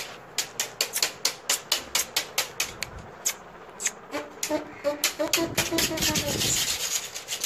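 Goat kids' small hooves tapping quickly on a hard floor, a rapid run of sharp clicks about three to four a second. A faint voice-like sound rises and falls in the middle.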